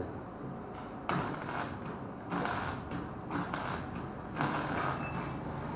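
Hand tool working on metal parts: four short rasping mechanical strokes, about a second apart.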